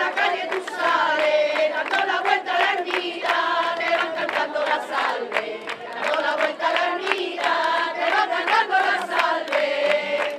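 A crowd singing together in unison, with hand clapping running through the song.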